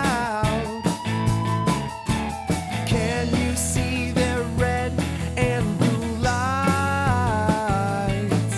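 Rock-style children's song playing with a steady drum beat and guitar, and a voice singing long sliding notes.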